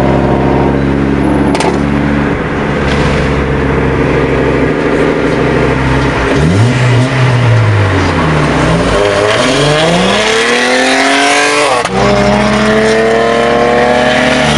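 Car engine running loud. Its pitch dips about six seconds in, climbs steadily for several seconds, then drops back at about twelve seconds and holds steady, as an accelerating car does through a gear change.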